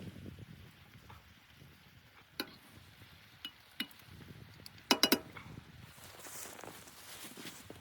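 Light metallic clinks: a few single ones, then a quick cluster of three about five seconds in, over faint soft rustling.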